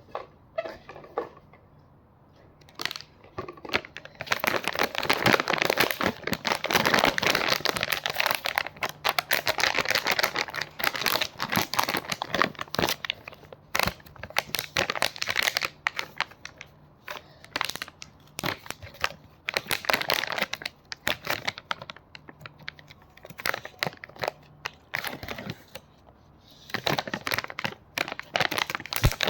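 Blind-box packaging being crinkled and torn open by hand: several seconds of dense crinkling starting about four seconds in, then scattered crackles and clicks, and another burst of crinkling near the end.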